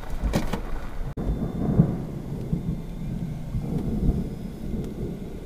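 Low rolling thunder from a nearby thunderstorm, rumbling unevenly, swelling and fading, with a short break about a second in.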